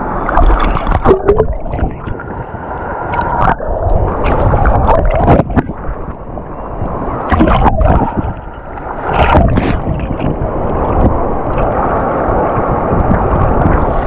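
Choppy sea water sloshing and splashing close to the microphone over a steady rush of waves, with sharp splashes at irregular intervals.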